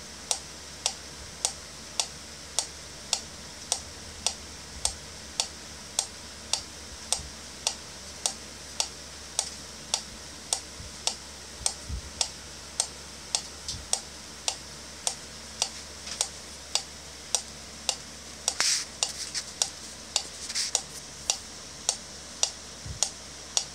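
Wind-up pyramid metronome ticking at a steady, even beat, a little under two sharp clicks a second.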